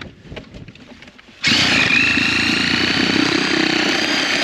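A power saw starts suddenly about a second and a half in and runs steadily, cutting into corrugated plastic drain tile, with its pitch wavering slightly under load.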